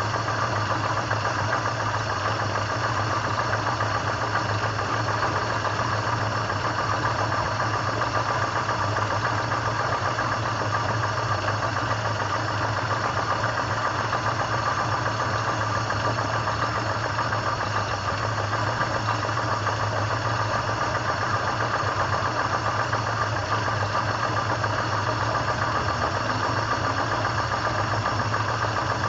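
Peugeot 505 GAMMA engine idling steadily, with no revving. The owner suspects a faint 'taca taca' knock or tick somewhere in it and is hunting for its source.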